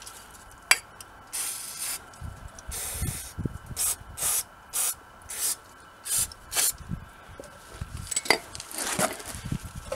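Aerosol brake cleaner sprayed into a brake caliper in about eight short hissing bursts, the first two a little longer, to flush out grime. Two sharp clicks are also heard.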